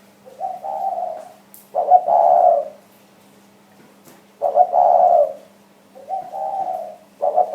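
Spotted dove cooing: five phrases of about a second each, in two groups with a pause between, some phrases softer and others louder. A faint steady low hum lies underneath.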